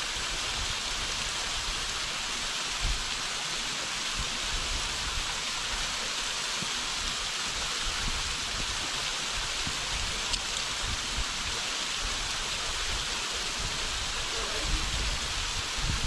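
Thin waterfall splashing in many strands down a rock face: a steady, even hiss of falling water, with a few low bumps near the end.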